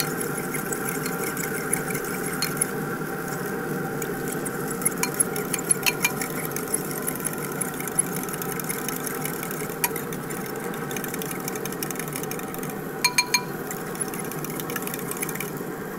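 Fork whisking eggs in a ceramic bowl, the tines clicking sharply against the bowl now and then, in a cluster about five seconds in and again near the end, over the steady hum of the pellet grill's fan running.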